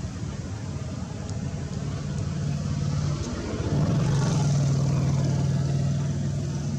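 A motor engine running steadily, a low hum that grows louder about four seconds in and eases off near the end.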